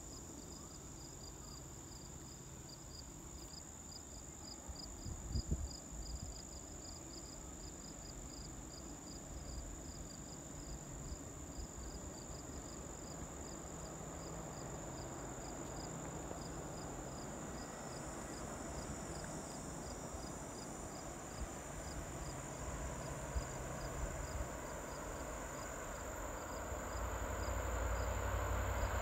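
Summer insects calling: a regular high chirp about three times a second over a steady high buzz. In the last few seconds the low rumble of an approaching train rises under them.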